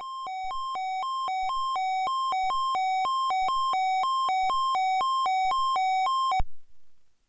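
Weather alert radio's electronic alarm sounding for a NOAA Weather Radio warning-alarm test: a hi-lo beep alternating between a lower and a higher pitch about twice a second. It cuts off abruptly near the end.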